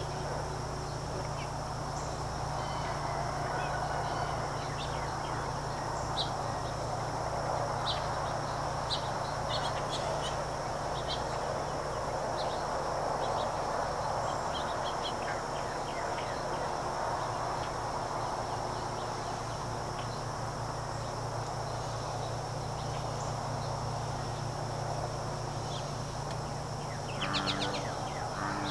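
Outdoor ambience: a steady high insect drone throughout, with scattered short bird chirps and a low steady hum underneath. Near the end there is a short run of rapid calls.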